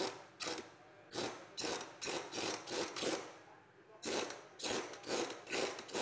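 A ratchet wrench cranking the centre screw of a pulley puller that is drawing the pulley off a car air-conditioning compressor. The ratchet gives short rasping bursts, about two to three a second, with a brief pause about three and a half seconds in.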